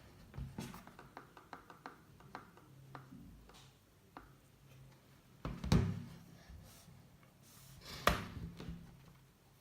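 Knocking from a 2017 15-inch MacBook Pro: a quick run of light clicks, then two louder knocks about two and a half seconds apart, each followed by a few small clicks. The knock is the fault the owner complains of, which was not accepted as a defect.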